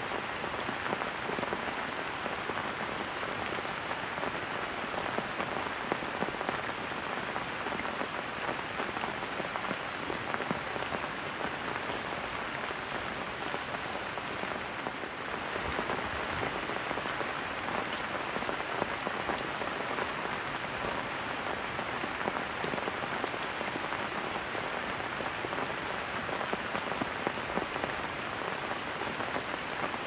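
Heavy rain falling steadily, an even hiss with scattered sharper drop hits.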